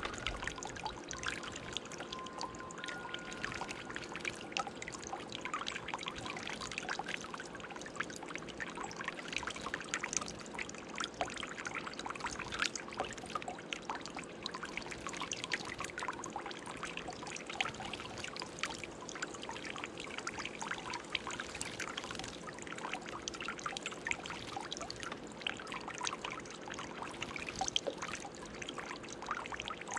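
Water trickling and pouring steadily in a birdbath fountain, dotted with many small sharp splashes as a chickadee bathes in the bowl.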